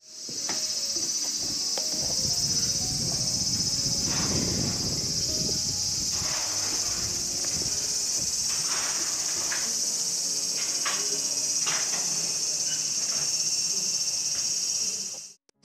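Cicadas singing in a steady, high-pitched chorus.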